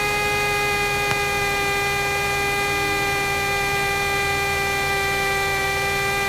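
Steady in-flight cockpit drone of a Cessna 172S's four-cylinder Lycoming engine and propeller, heard through the intercom audio feed, with a steady high-pitched hum laid over the low rumble.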